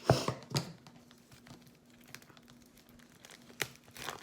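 Album packaging being handled and opened: two loud sharp crinkles or knocks in the first second, quieter rustling, then two more sharp crinkles near the end.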